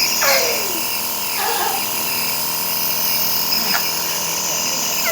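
Nebulizer compressor running with a steady hum while a baby with a cough is given steam inhalation to loosen phlegm. A few short falling vocal sounds come over it, near the start and near the end.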